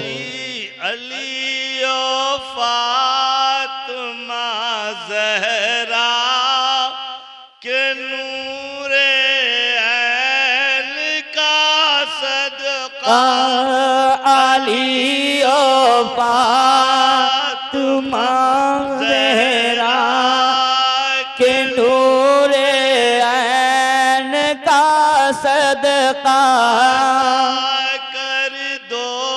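A man singing a devotional Urdu naat into a microphone in long, drawn-out phrases with wavering ornaments, breaking off briefly about seven seconds in.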